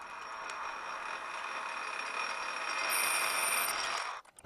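Metal lathe running with a steady whine and hiss that grows slowly louder, then cuts off suddenly about four seconds in.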